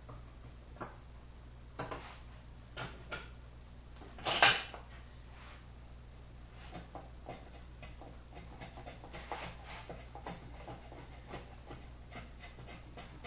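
Wood and tools handled on a workbench, with a few light knocks and one louder brief clatter about four seconds in. Then a hand router plane shaves wood from the recess in a wooden plane body, in a string of short, quick scraping strokes.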